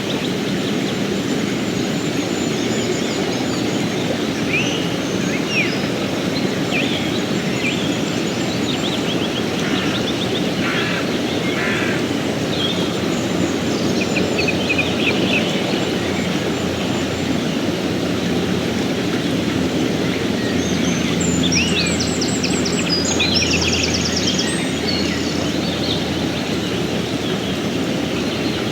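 Mountain stream running steadily, with songbirds chirping and trilling over it at intervals, busiest near the end.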